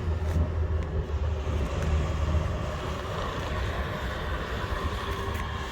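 Heavy construction machinery's engine running, a steady low rumble with a faint whine above it.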